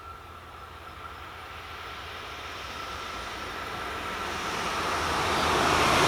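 A train approaching a level crossing, its running noise growing steadily louder as it nears.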